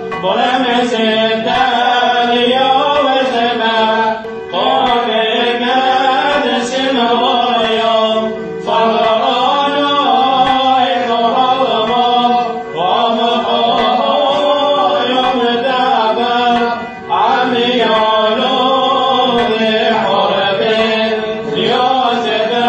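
Syriac Christian liturgical hymn for Christmas, chanted in Syriac Aramaic: a wavering, ornamented vocal melody sung over a steady drone, in phrases of about four seconds, each broken off by a short breath.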